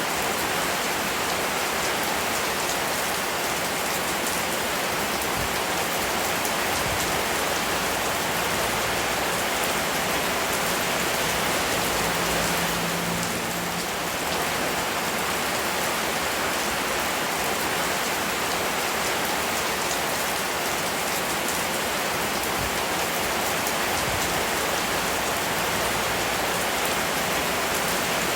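Steady rain falling and pattering on a surface, an even hiss that holds constant throughout.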